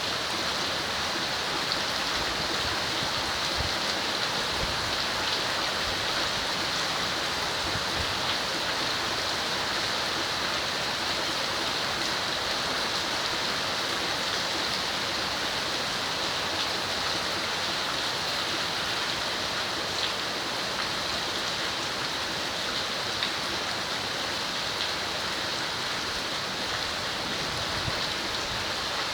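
Heavy tropical rain pouring steadily, an even hiss with no breaks.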